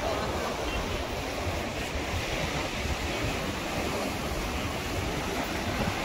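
Sea waves washing steadily onto the shore, mixed with wind rumbling on the microphone.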